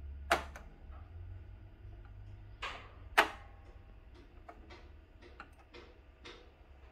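Sanyo TP-1005 turntable being handled: a few sharp mechanical clicks from the tonearm and its controls, loudest about a third of a second in and near the middle. A run of lighter ticks follows as the tonearm is moved over the spinning record.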